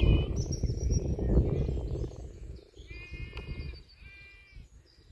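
Rural outdoor ambience in a sheep pasture: a loud low rumble, like wind on the microphone, for about the first two seconds, then two short high calls about a second apart near the end, with faint birdsong.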